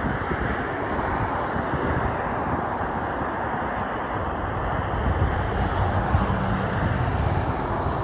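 A steady engine rumble under a broad outdoor hiss, with a low hum that grows a little stronger after the middle, cut off abruptly at the end.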